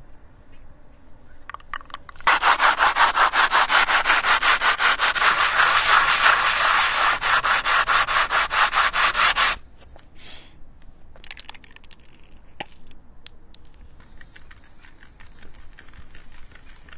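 A hard object is scrubbed rapidly back and forth against asphalt: a loud, even rasping of several strokes a second that lasts about seven seconds and stops abruptly. Near the end a spray can gives a steady hiss.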